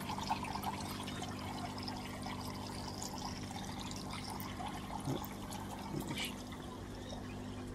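Water steadily pouring and trickling from an aquaponics grow bed's drain pipe into the sump tank as the bed's siphon starts to trigger, over a steady low hum.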